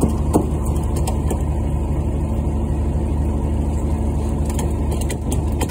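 A fishing boat's engine running with a steady low drone, with one short knock about half a second in.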